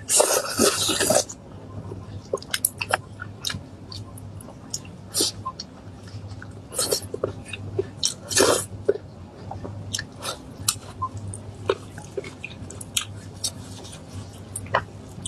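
Close-up eating sounds of saucy braised meat: wet chewing, lip-smacking and sucking, as many short irregular smacks and clicks, with a loud bite and slurp in the first second.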